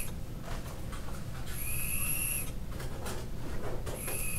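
Air whistling through a Kanger Subtank's airflow as quick priming draws are taken on it without firing, to pull e-liquid into the coil. A steady two-pitched whistle lasting just under a second with each draw: one about a second and a half in, and another starting near the end.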